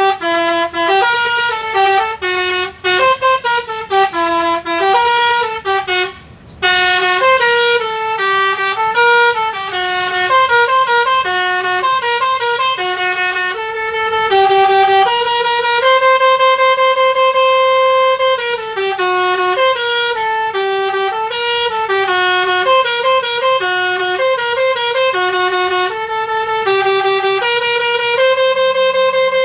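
Basuri telolet vehicle horn playing a tune: a run of stepped multi-tone horn notes, with a brief break about six and a half seconds in and some longer held notes later.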